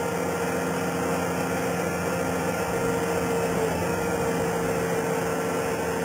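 Skid steer loader's engine running at a steady speed, a continuous engine hum with no revving.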